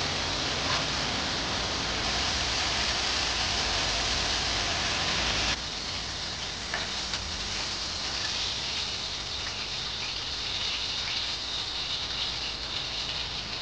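Steady rain falling. About five and a half seconds in, it drops abruptly to a softer rain with faint scattered ticks.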